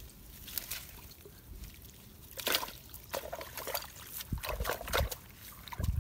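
Water dribbling and splashing off a wet cloth net as it is handled and laid down in the grass, in irregular wet sloshes from about two and a half seconds in.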